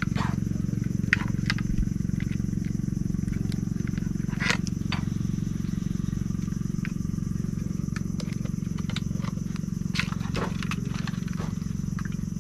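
Scattered plastic clicks and knocks from a waterproof phone case being handled as a phone is fitted into it, over a steady low hum.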